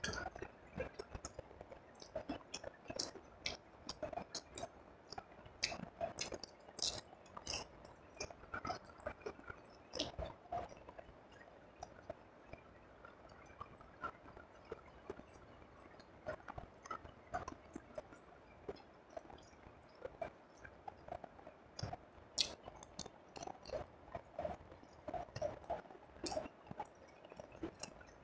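Close-miked chewing of fried rice and fried fish eaten by hand, with frequent short mouth clicks and an occasional crunch.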